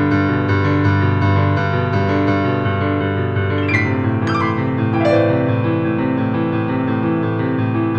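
Slow piano music with long held chords, changing to new notes about halfway through.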